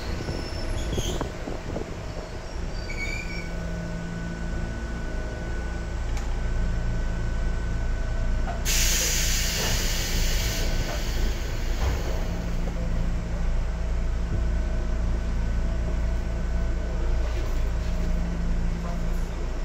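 A Sangi Railway 101-series electric multiple unit running along the line, heard from on board: steady traction-motor hum and wheel-on-rail noise. A loud hiss breaks in briefly about halfway through.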